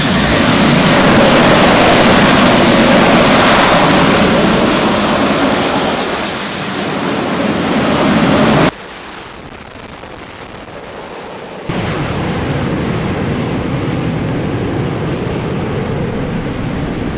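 Loud jet noise from an AV-8B Harrier II's Pegasus turbofan as the jet leaves the carrier deck. The sound drops off abruptly a little past the halfway point and comes back a few seconds later, somewhat quieter, as a Harrier flies over the sea.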